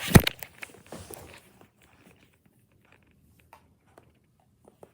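A sudden thump with about a second of rustling, then only a few faint scattered clicks.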